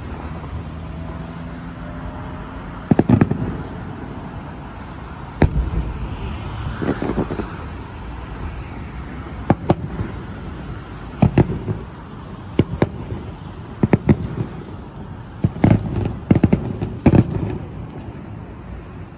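Fireworks shells bursting in the finale barrage of a display: sharp bangs at irregular intervals, coming closer together towards the end.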